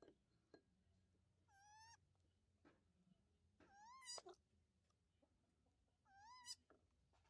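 Baby monkey crying out with hungry, high-pitched calls, three in all, each about half a second long with a wavering, rising-then-falling pitch, roughly two seconds apart.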